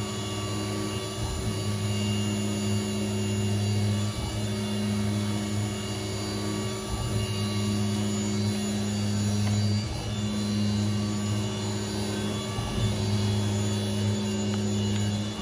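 Grizzly G0704 CNC mill running a job under flood coolant: a steady machine hum that dips briefly about every three seconds, over the continuous hiss and splash of coolant spraying inside the enclosure.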